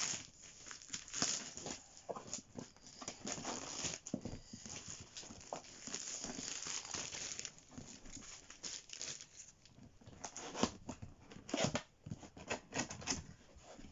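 Packing tape being torn off a cardboard box and clear plastic wrapping crinkling, in an irregular run of rustles, rips and scrapes, with a few louder rips near the end.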